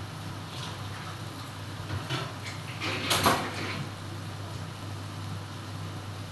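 A steady low hum, with a few light knocks about two seconds in and a short clatter around three seconds in, like a household object being knocked or set down.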